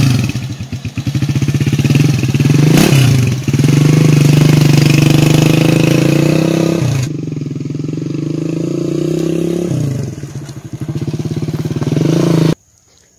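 Small motorcycle engine revving as the bike pulls away, its pitch climbing and then dropping sharply twice as it changes gear. It cuts off suddenly near the end.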